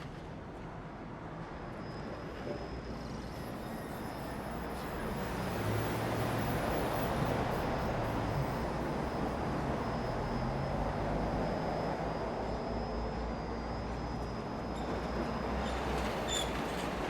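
Road traffic noise: a vehicle with a low engine hum passes close, the tyre and engine sound building over several seconds and then easing off slightly.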